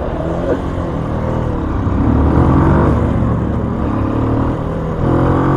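Motorcycle engine running, revved up about two seconds in, easing back, then picking up again near the end.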